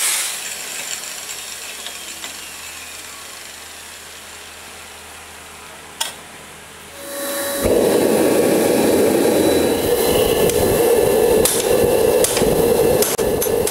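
An angle grinder's noise dies away, leaving a quieter stretch. About six seconds in there is a sharp click. Then a butane flame-gun torch firing into a homemade gas-cylinder forge burns steadily and loudly, with a run of fast regular ticks near the end.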